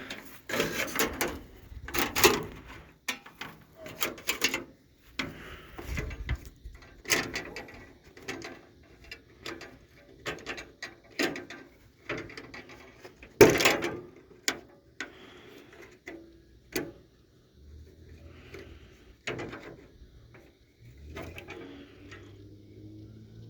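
Irregular metallic clicks, rattles and scrapes from hands working a first-gen Dodge truck's broken hood-latch cable and its clip free, with one sharp knock about halfway through.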